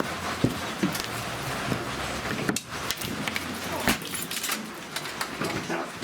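Irregular clicks, knocks and clatter of broken plastic and metal pieces from a smashed alarm clock and vacuum cleaner being shifted about.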